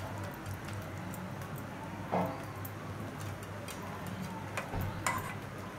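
Faint ticks and scrapes of a steel spoon on a ceramic plate over a low steady hum, with one short louder sound about two seconds in.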